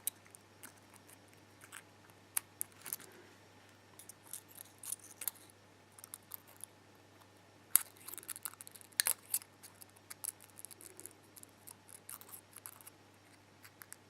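Scattered light clicks and scrapes of small metal lock parts and tools being handled, irregular with quiet gaps between, the sharpest click about eight seconds in.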